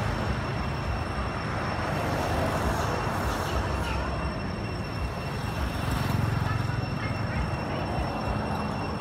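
Steady outdoor background noise: a low rumble with a faint, thin high whine held on one pitch.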